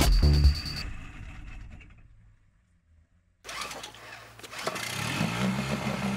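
Music fades to silence. About halfway through, an inflatable dinghy's small outboard motor cuts in, running and growing steadily louder.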